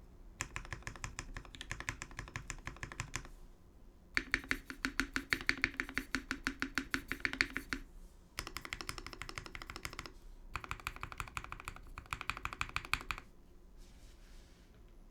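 Typing on a TGR 910 CE mechanical keyboard with lubed Alpaca-stem switches in Gateron Milky housings on a brass plate, under GMK keycaps: four fast runs of keystrokes with short pauses between them, the second run the loudest. The typing stops about two seconds before the end.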